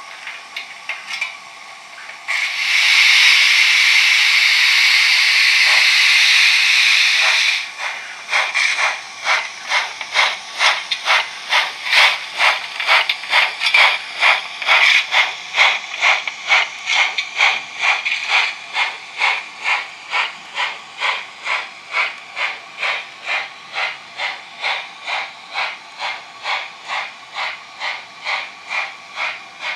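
Steam locomotive sounds from an ESU LokSound decoder in a REE Modeles 231 PLM Pacific model: a loud steady steam hiss for about five seconds, then exhaust chuffs at a steady beat of about two a second as the locomotive gets under way, slowly growing fainter.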